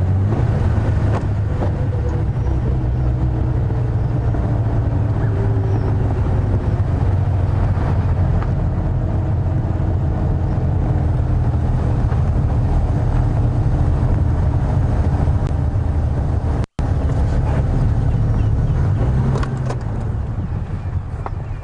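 Safari game-drive vehicle's engine running steadily as it drives along a bush track, with faint whining tones over the low hum. The sound cuts out for an instant about 17 seconds in, and the engine eases off near the end.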